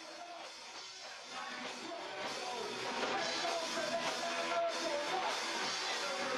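Punk rock track playing, a full band with drums, getting louder about a second and a half in.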